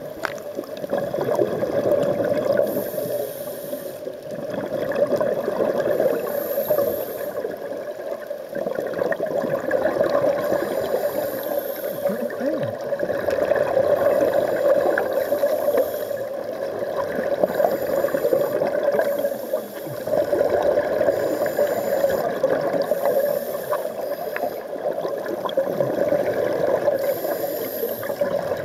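A scuba diver's regulator breathing underwater, with a bubbling, hissing burst every few seconds over steady underwater noise.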